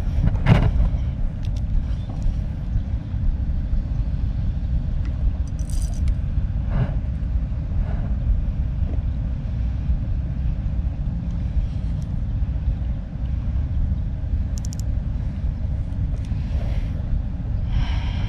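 Steady low rumble of wind buffeting the microphone, with a few faint clicks and rustles over it.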